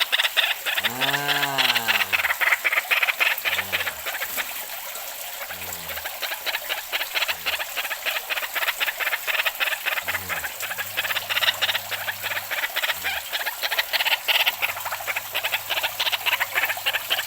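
White-breasted waterhen (ruak-ruak) calling a long, rapid series of harsh croaking notes, with a low steady hum coming and going in the second half.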